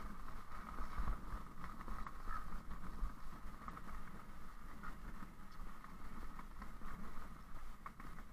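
Wind rumbling on the microphone of a camera moving quickly down a forest trail, with a steady hiss and scattered small knocks and rattles.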